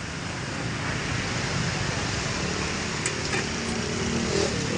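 Steady hiss of a street cooking station, with bánh xèo pans sizzling over the burners and a low rumble underneath. A couple of light clinks of utensils come about three seconds in.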